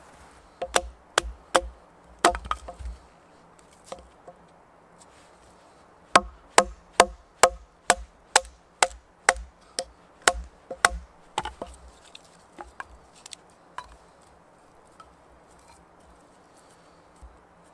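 Splitting a small stick by batoning a knife with a wooden stick: sharp wooden knocks, a few at first, then a run of about a dozen at roughly two a second, then only faint small sounds near the end.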